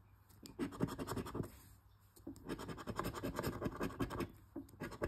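Scratch-off lottery ticket being scratched with quick, rapid strokes, rubbing the latex coating off the play area, in two spells with a short pause between them.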